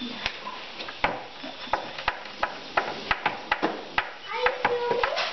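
Irregular small clicks and taps, several a second, of hands working at a solar charge controller being fitted to a plywood board.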